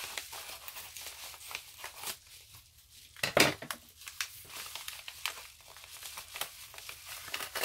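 Yellow padded mailer envelope being opened and handled: irregular crinkling and rustling of the envelope, with a louder burst about three seconds in.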